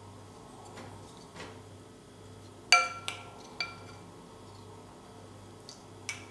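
Wooden spoons knocking against a white ceramic soup bowl of broth. One sharp clink that rings about two and a half seconds in is followed by two lighter taps, with another tap near the end and soft scraping before it.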